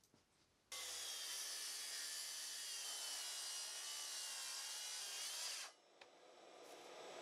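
Makita cordless track saw cutting 3/4-inch plywood along its guide rail: a steady whine with cutting noise that starts suddenly under a second in and stops abruptly about five and a half seconds in. A quieter sound builds near the end.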